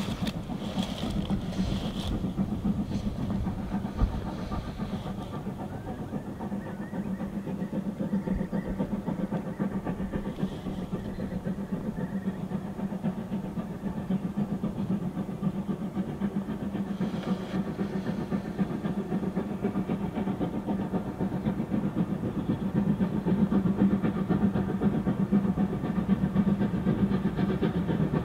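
Steam locomotive working a train of coaches, its exhaust beat and running noise drawing closer and getting louder over the last few seconds.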